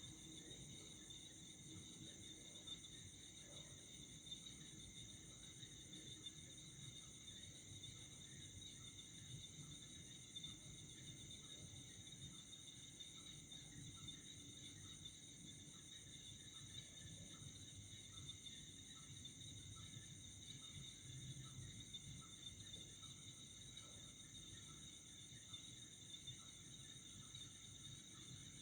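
Faint, steady chorus of night crickets: several high-pitched tones held without a break.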